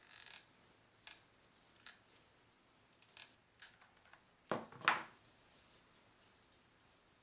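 Handling sounds at a workbench: soft rustles and clicks as a hot glue gun and a fabric-covered lampshade are moved about. A little past halfway come two louder knocks close together, the glue gun being set down on the wooden tabletop.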